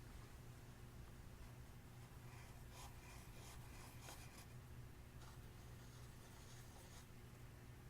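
Faint, soft scraping and rubbing of clear slime being mixed, a few separate strokes over a steady low hum.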